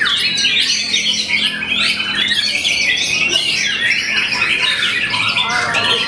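White-rumped shama (murai batu) singing without a break: a fast, dense run of varied high notes and gliding phrases.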